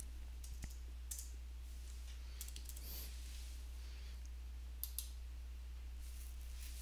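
Computer keyboard keys tapped irregularly, a few scattered keystrokes as figures are typed in, over a steady low hum.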